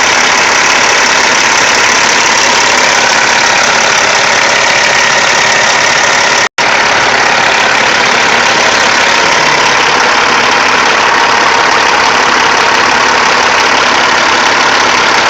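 Caterpillar C15 inline-six diesel engine running steadily, loud and close. The sound drops out completely for an instant about six and a half seconds in.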